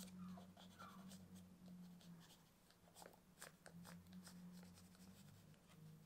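Pencil scratching on paper in many short, quick strokes, faint, over a steady low hum.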